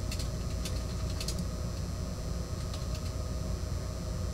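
Steady low background hum with a few light clicks scattered through it, as of a computer mouse being worked while drawing.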